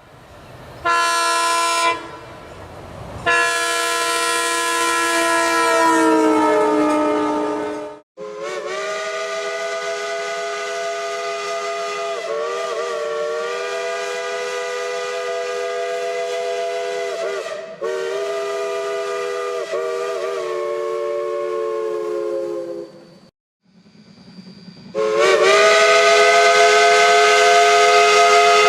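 A string of train whistle blasts, each a chord of several tones, cut one after another: a short blast about a second in, a long one whose pitch sags at its end, a long steady chord whose pitch wavers briefly in the middle, another that stops short, and a loud blast starting near the end.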